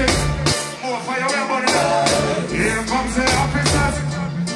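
Live reggae band with drum kit and bass backing a male lead vocal sung into a microphone. The deep bass drops out for about a second shortly after the start, then comes back in.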